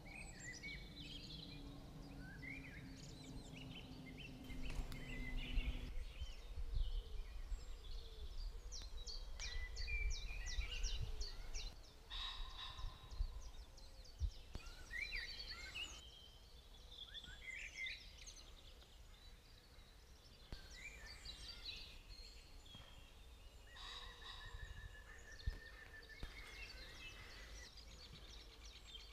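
Songbirds singing and calling with many short chirps and trills, over a low wind rumble on the microphone. A low steady hum runs under the first few seconds, and the mix of birds changes abruptly several times.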